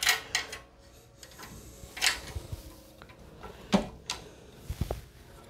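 A handful of sharp clicks and taps spaced a second or more apart, with a duller knock near the end: a screwdriver and screws working against a PC case and radiator fan frame while the radiator is fastened in.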